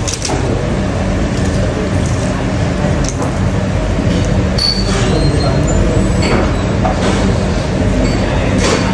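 Steady city street noise: traffic running past with a continuous low rumble and a faint steady hum.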